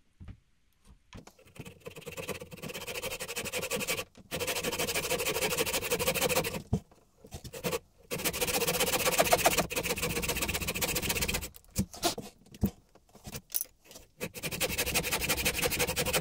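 Hand-held saw blade rasping back and forth through beech in the throat of a wooden plane body, in four runs of quick, even strokes with short pauses between them. A few light knocks come in the pause between the third and fourth runs.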